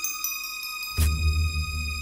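Film score music: a run of falling notes over held high tones, then a sharp low hit about a second in that rumbles on deep.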